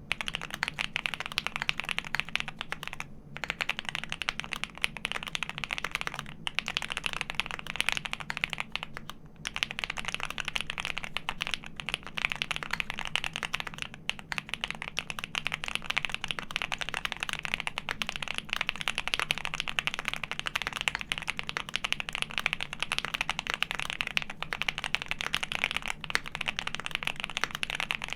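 Continuous fast typing on a custom mechanical keyboard: lubed Alpaca linear switches with 65g slow springs on a PC plate in a Mr. Suit case, with GMK Serika keycaps, a dense run of keystroke clacks. The typing pauses briefly three times, at about 3, 6 and 9 seconds.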